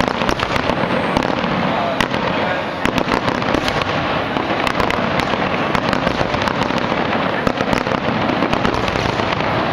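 Fireworks display: aerial shells bursting in a dense, continuous barrage, many sharp cracks and bangs in quick succession.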